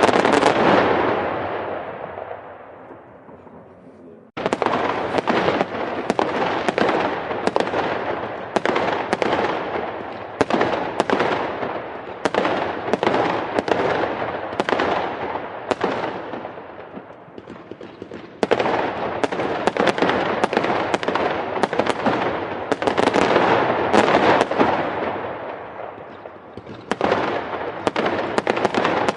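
Fireworks going off in a dense barrage of rapid bangs and crackles. The barrage fades over the first few seconds, starts again abruptly about four seconds in, and swells and ebbs in waves, breaking off and restarting suddenly about eighteen seconds in.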